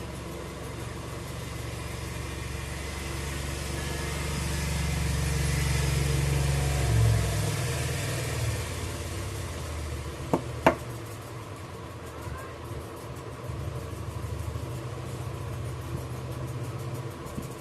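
Steady electric hum with an airy blowing that swells over the first seven seconds and then eases, as from a hot-air rework station during soldering work on a phone board. Two sharp clicks come close together about ten seconds in.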